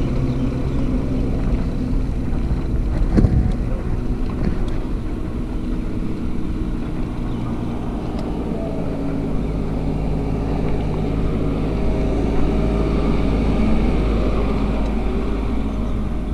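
Wind rumbling on an action camera's microphone while cycling, with a steady mechanical hum of traffic underneath. There is one sharp knock about three seconds in.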